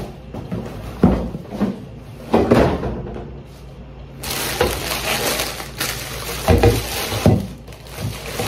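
Cardboard box and plastic packaging being handled while a cookware set is unpacked: a few knocks and bumps of cardboard, then plastic wrap crinkling from about four seconds in.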